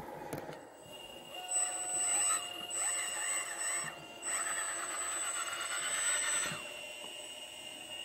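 Scale RC hydraulic Cat 374F excavator's hydraulic pump and valves running with a steady whine, working harder in three spells, the last about two seconds long, as the boom, stick and bucket move.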